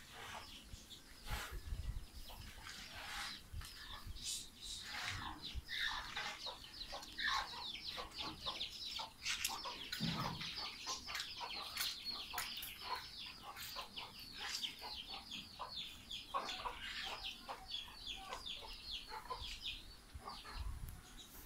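Birds calling: a dense run of many short, high chirps and clucks in quick succession.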